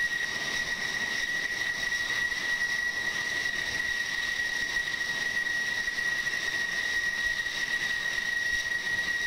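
F-16 fighter jet engines at taxi power: a steady, high-pitched turbine whine.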